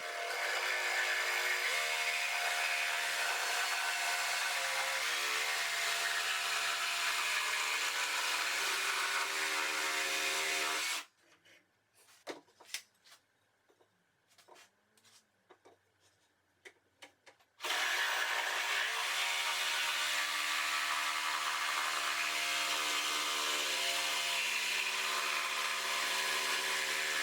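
Electric jigsaw cutting a curve along a clamped wooden strut: it runs steadily for about eleven seconds, stops, and a few small knocks follow from the wood and saw being handled. About two-thirds of the way in, the saw starts again and runs steadily to the end.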